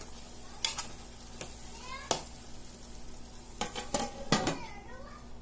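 A spoon knocking and scraping against a large aluminium pot as chicken fries in it, then several clanks with a brief ring as the aluminium lid goes onto the pot about four seconds in.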